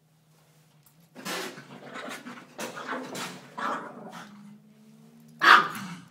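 A small dog huffing and barking in a string of short, rough outbursts, the loudest a sharp bark near the end.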